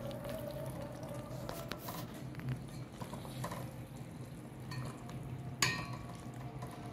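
A metal spoon stirring and scraping thick semolina halwa in a steel pot, with small clinks of the spoon against the pot and one sharper clink about five and a half seconds in.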